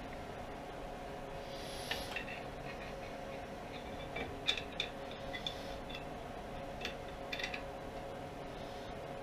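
Scattered light metallic clicks and taps of a hex key working on the lathe saddle's cap-head screws, the sharpest about halfway through, over a steady background hum.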